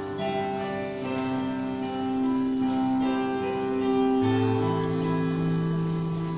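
Music of sustained chords in several parts, the held notes changing to a new chord every second or so.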